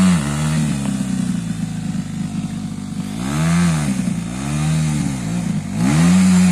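Dirt bike engine revved in short throttle blips, rising and falling about four times, with the loudest near the end. The engine is labouring to get the bike up a steep climb while it is pushed by hand.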